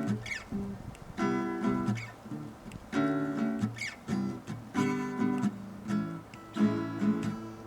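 Acoustic guitar strumming chords in a steady rhythm, an instrumental passage between sung verses of a live lounge-jazz song.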